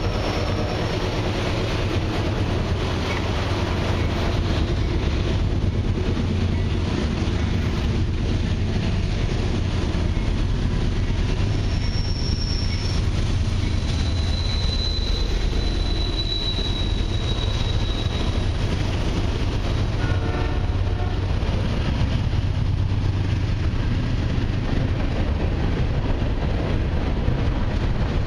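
Slow freight train passing close by, about 17 mph, led by three CN diesel locomotives: a steady engine drone and rumble as the engines go by, then the rolling of loaded freight cars over the rails.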